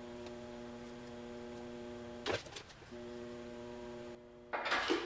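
Electric motor of a bead roller humming steadily while an aluminum panel is fed through. It stops with a sharp knock about two seconds in, runs again for just over a second, and a short clatter follows near the end.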